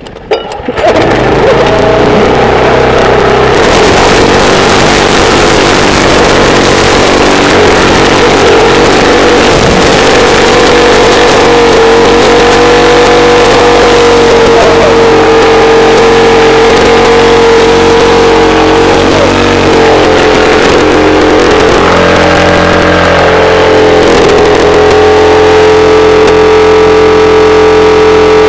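Small 'alkon' petrol engine running loud and steady at high revs. It comes up to speed about a second in, and its pitch dips briefly a few times in the second half.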